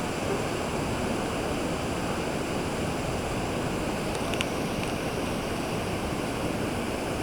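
Whitewater rushing steadily down a canoe slalom course, with a couple of brief high ticks about four seconds in.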